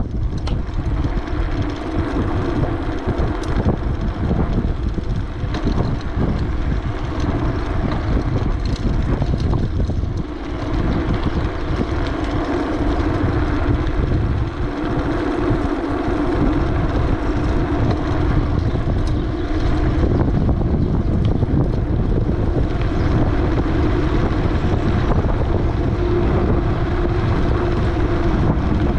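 Wind buffeting the microphone of a camera on a moving bicycle, a loud, steady rumble, with a continuous droning tone running beneath it.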